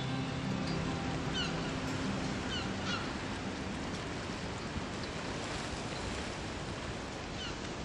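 Outdoor harbour ambience: a steady, even hiss of background noise as the tail of background music fades out over the first few seconds. A few short, falling bird calls come about one and a half seconds in, again about two and a half seconds in, and near the end.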